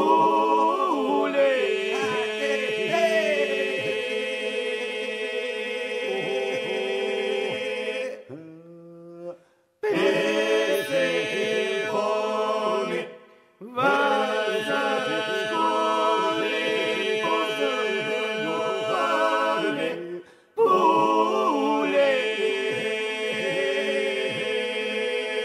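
Albanian Lab polyphonic singing, unaccompanied: solo voices trade ornamented lines over a steady sustained group drone (the iso). It is sung in phrases with short breaks between them.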